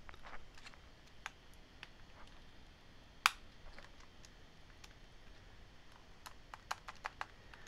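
Faint, scattered small clicks and taps as a plastic key scissor mechanism is pressed into place with tweezers on a white MacBook keyboard. There is one sharp click about three seconds in and a quick run of clicks near the end.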